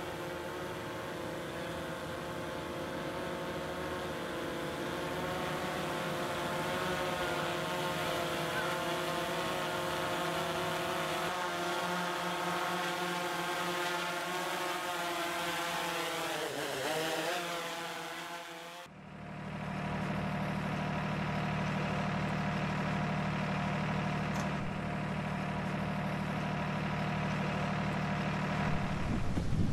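Helicopter engine and rotor running steadily, heard from on board during aerial filming; the pitch wavers briefly before cutting off. Then a truck's engine idling steadily with a low hum.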